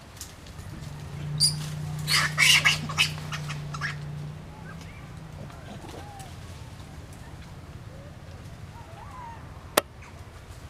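A quick series of noisy animal calls starting about a second and a half in and lasting around two and a half seconds, over a low steady hum. A single sharp click near the end.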